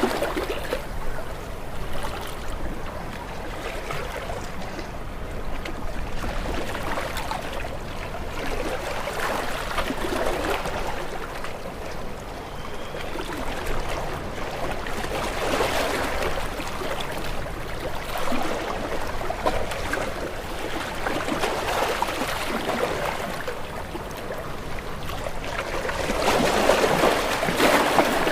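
Ocean waves breaking and washing against rocks: a continuous rush of water that swells every few seconds, with the biggest surge near the end.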